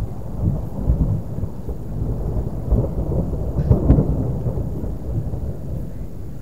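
Rolling thunder: a long, low, uneven rumble that swells about three to four seconds in and then eases off.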